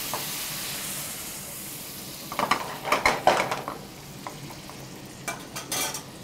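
Pasta cooking water sizzling on hot rendered pancetta fat in an aluminium frying pan, the hiss dying away over the first two seconds as the pan's leftover heat is used up. Then a metal ladle scrapes and clinks against the pan in short strokes, stirring to lift the browned bits stuck to the pan.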